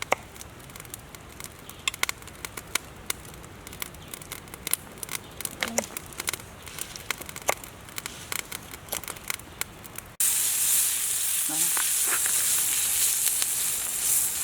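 Cooking fire crackling with scattered sharp pops; about ten seconds in it cuts abruptly to a louder, steady sizzle of food frying.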